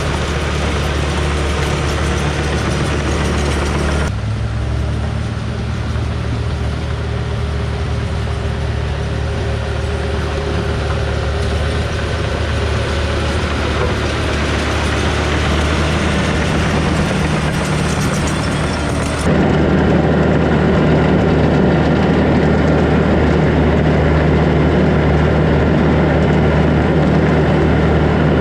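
John Deere 450H crawler dozer's diesel engine running steadily under work, a low hum with a constant pitch. The sound changes abruptly about four seconds in and again about nineteen seconds in, getting louder and lower after the second change.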